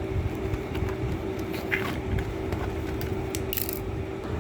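Scissors snipping and cardboard-and-plastic doll packaging rustling in scattered clicks, with a brief crisp burst about three and a half seconds in, over a steady low rumble and hum.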